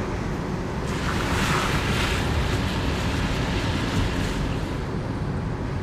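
Car tyres hissing through water on a wet road over a steady low road rumble, the spray hiss swelling about a second in and again near four seconds, then easing off toward the end.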